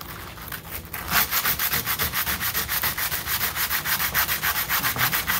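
A chromatic harmonica slider being hand-sanded on 60-grit sandpaper: quick, even back-and-forth scratchy strokes, several a second, which pick up in pace and loudness about a second in.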